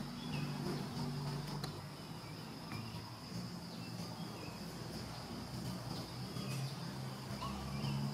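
Outdoor insect drone, a steady high-pitched trill of crickets, with a low hum coming and going underneath and a few faint short chirps.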